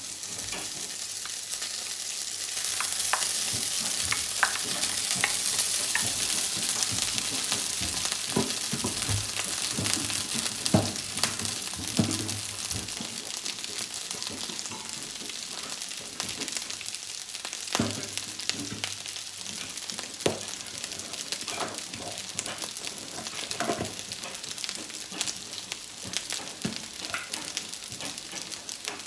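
Fried rice sizzling in a hot oiled pan as it is stir-fried, with a utensil repeatedly scraping and knocking against the pan. The sizzle is loudest in the first several seconds and eases somewhat after.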